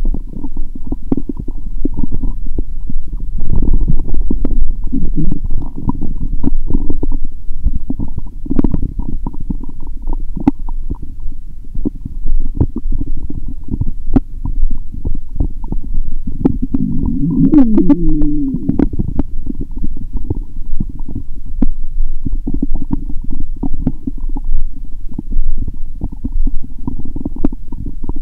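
Human stomach and intestines gurgling and rumbling continuously, with scattered small pops. About two-thirds of the way through comes a longer squeaky gurgle that slides in pitch. The gut is very active after a lot of probiotic lactic acid bacteria drink.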